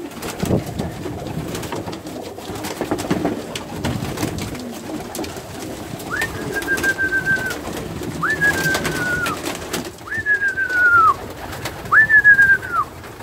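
A loft flock of fancy pigeons flying down to scattered grain: a clatter of wingbeats over steady cooing. From about halfway, four high whistle-like tones of about a second each, falling in pitch at the end, come at roughly two-second intervals.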